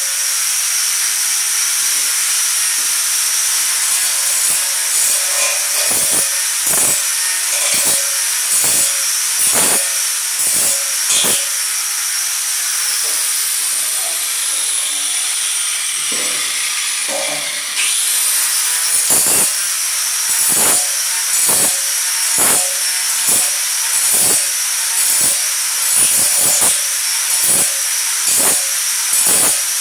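Electric angle grinder with a sanding disc polishing a steel tube: a steady high whine with a rasping that swells about once a second as the disc is swept along the metal. About halfway through, the whine falls slowly in pitch and then climbs back up quickly.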